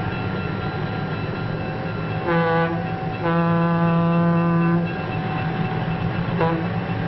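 Diesel-electric locomotive running steadily while its air horn sounds twice, a short blast about two seconds in and then a longer blast of about a second and a half, as the train gets under way.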